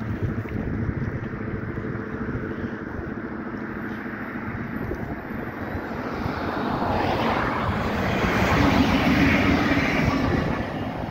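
Several Prima electric locomotives coupled together and running light approach and pass close by. A growing rumble of wheels on rail swells to its loudest about nine seconds in, with a steady hum from the locomotives as they go past, then eases off near the end.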